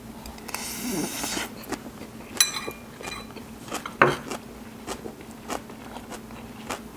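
Cutlery and dishes clinking and tapping: scattered light clicks, a ringing clink about two and a half seconds in and a heavier knock about four seconds in.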